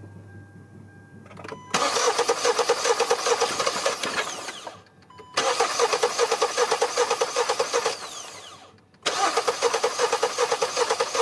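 Kia Sportage / Hyundai Tucson engine being cranked by the starter three times, each attempt a few seconds of rapid, even chugging that fades away without the engine catching: a crank-no-start fault. A short tone sounds just before each attempt.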